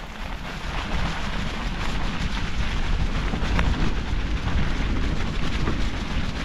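Wind rumbling on the microphone and bicycle tyres rolling over a rough dirt trail, with scattered clicks and rattles; it gets louder about a second in.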